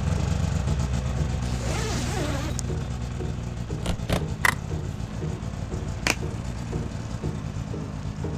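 Music: a deep, steady low drone with a few sharp percussive hits about four and six seconds in.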